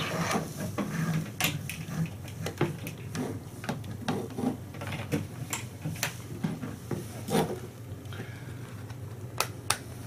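Handling noises as network cables are connected: a scattering of light clicks, knocks and rubs from patch-cable plugs and a Cat5 cable tester being handled at a patch panel, over a steady low hum.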